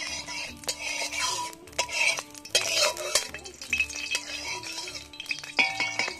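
A spatula scraping and clinking against a cooking pan with sharp irregular knocks as raisins and cashews are stirred in hot oil. Background music with a repeating beat plays underneath.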